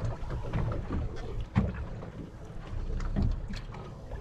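Wind buffeting the microphone and water sloshing against a fishing boat's hull on open sea, an uneven low rumble with scattered knocks, the sharpest about a second and a half in.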